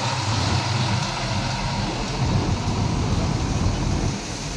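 Intercity coach's diesel engine running as the bus drives slowly past close by and moves off, a steady low rumble.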